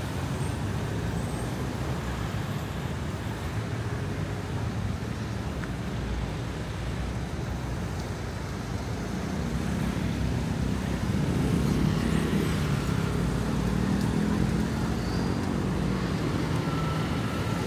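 City street traffic: cars passing close by, with a heavy truck engine growing louder in the second half.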